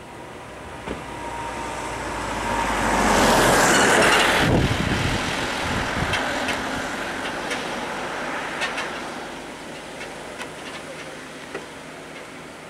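Small Mahindra pickup truck driving past close by: engine and tyre noise swell to a peak about four seconds in, then fade as it moves away.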